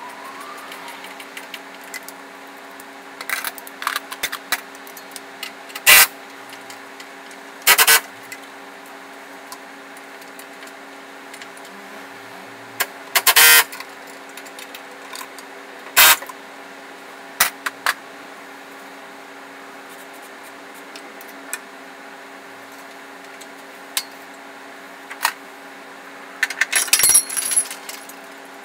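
Sharp metal clanks and knocks, a few seconds apart, from an engine being worked into place in the engine bay on a hydraulic engine hoist, with a busier run of clatter near the end. A steady hum runs underneath.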